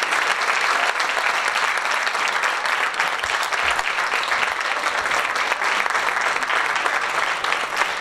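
Steady applause from a crowd of people clapping their hands.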